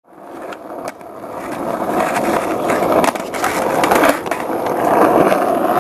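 Skateboard wheels rolling, the noise growing steadily louder, with a few sharp clacks from the board about a second in and again around three and four seconds in.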